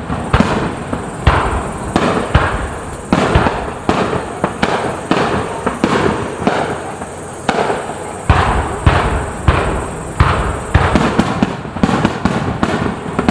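Aerial fireworks bursting in quick succession: a steady string of sharp bangs, about one to two a second, each tailing off into its echo, with deeper booms in the middle.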